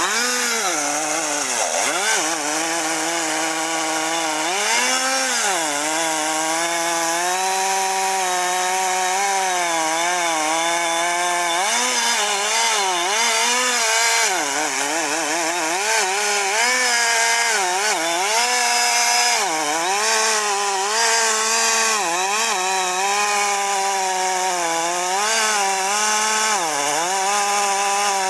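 Chainsaw running and cutting wood, its engine note dropping and recovering again and again as the chain loads up in the cut.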